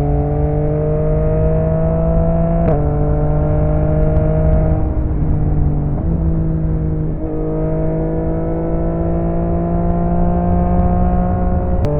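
Yamaha XSR900 inline-three motorcycle engine through an aftermarket M4 exhaust, accelerating under way: revs climb slowly and steadily in gear, with a sharp drop in pitch from an upshift about three seconds in, a brief dip around six to seven seconds, and another shift right at the end.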